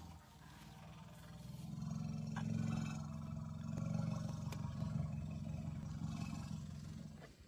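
Asian elephant giving one long low rumble, swelling about a second and a half in and fading out near the end.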